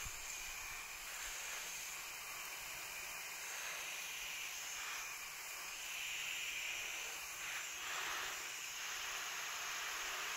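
Hand-held garden hose shower nozzle spraying water onto leafy shrubs: a steady hiss of spray falling on the leaves.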